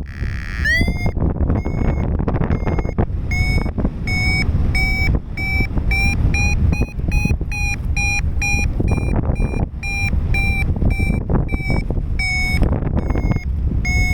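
Paragliding variometer beeping its climb tone over heavy wind noise on the microphone. The beeps come faster and slightly higher in pitch around the middle, the sign of stronger lift, then slow again near the end.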